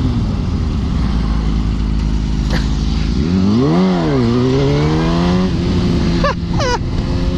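Motorcycle engine running under way, with wind hiss. About three and a half seconds in, it revs up once and drops back. Two short rising whines come near the end.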